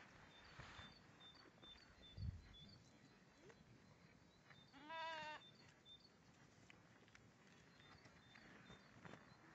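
A sheep bleats once about halfway through, a short, slightly wavering call, and the pasture is otherwise quiet. Faint high chirps repeat in the background.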